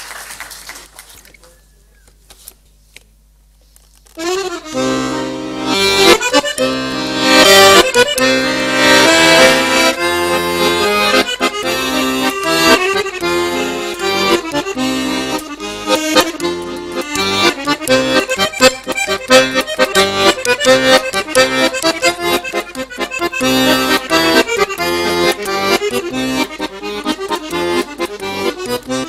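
Piano accordion played solo. The last of the applause fades, there is a short hush, and about four seconds in the accordion starts a fast piece of rapid runs and chords that goes on to the end.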